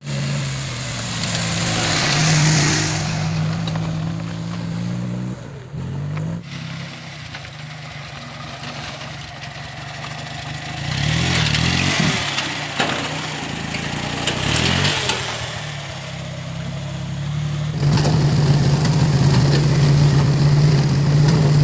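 Engine of a homemade LPG-fuelled Sanedo mini tractor running under a load of sacks as it drives by on a dirt track, its steady note swelling as it comes close. Near the end it is heard from the driver's seat, louder and steadier.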